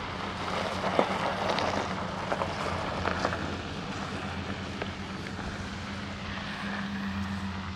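Pickup truck driving off on a gravel road: the engine runs steadily under the hiss of tyres on gravel, with a few small scattered pops.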